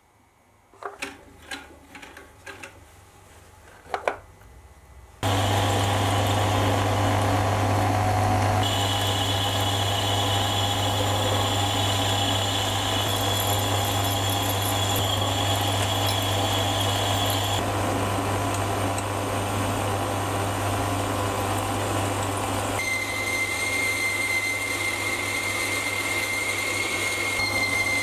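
A few light metal clinks as steel lathe chuck jaws are handled, then from about five seconds in a metal lathe running steadily with a low motor hum while an insert tool turns and then bores a metal bar. High steady tones come and go over the hum during the cutting.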